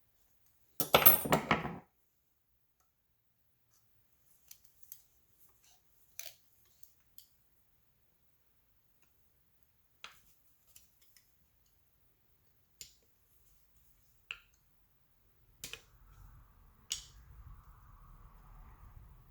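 Small metal parts and tools handled on a workbench: a brief loud metallic rattle about a second in, then scattered light clicks and taps as screws are fitted to a fuel-injection warm-up regulator's top plate.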